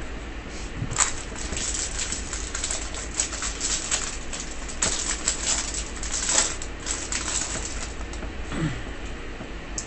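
Foil wrapper of a jumbo pack of Topps baseball cards being torn open by hand: a run of crinkles and rips, sharpest about a second in and again around five and six seconds, dying away near the end.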